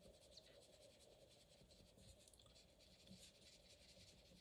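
Faint scratchy strokes of a drawing tip on paper as small colour swatches are laid down.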